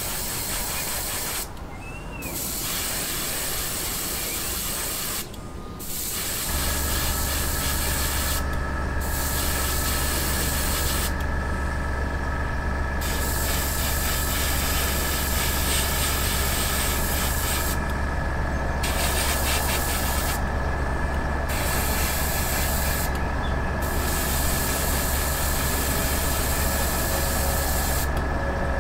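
Airbrush spraying paint with a steady hiss, broken by several short pauses where the trigger is let off. About six seconds in, a steady low motor hum starts and runs on under the spraying.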